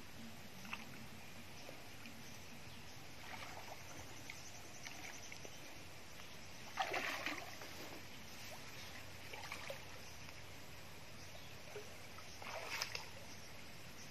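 Water splashing and sloshing as hands work in a shallow pond, pulling water mimosa from the surface, in several short bursts: the loudest about seven seconds in, another near the end.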